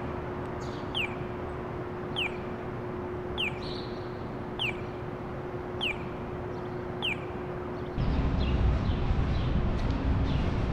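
A high, falling chirp repeated evenly about every 1.2 seconds over a steady low hum. About eight seconds in this gives way abruptly to louder, deeper outdoor city rumble.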